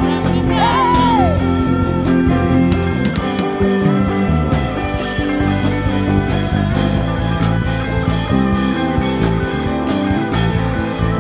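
Worship band playing an instrumental passage, with steady bass notes, guitar and drums. There is a brief sung, gliding note about a second in.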